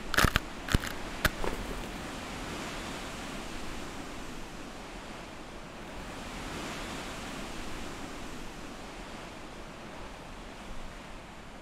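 A few sharp hits in the first second and a half, then a steady rushing noise like wind or surf.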